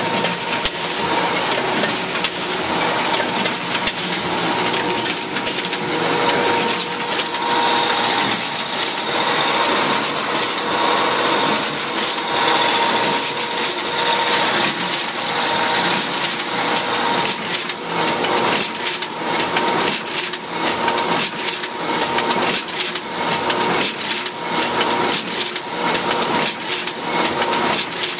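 Duplo 1060 twin-tower paper collator running, its feed rollers and sheets making a fast, steady clatter over a constant machine whine. About two-thirds of the way in, the clatter settles into a more even pulsing.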